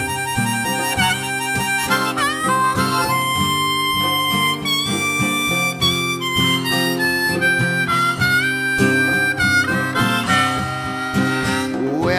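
Harmonica solo of long held notes stepping up and down, over a rhythmically strummed acoustic guitar: an instrumental break in a blues-folk song.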